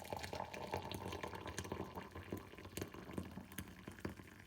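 Tea pouring from a glass teapot's spout into a cup, a steady trickle that thins out about halfway through and ends in scattered drips. The spout dribbles a little because the pour was not fully committed.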